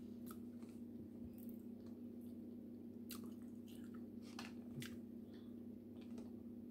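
Quiet chewing with scattered wet mouth clicks and smacks as food is eaten, over a steady low hum.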